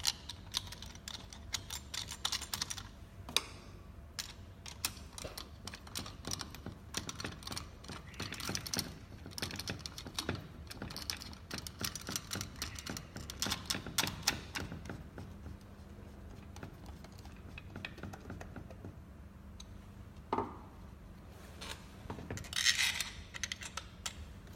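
A hand screwdriver driving the mounting screws of a smart door lock into the door: clusters of rapid small metallic clicks and scrapes, with a louder scrape near the end.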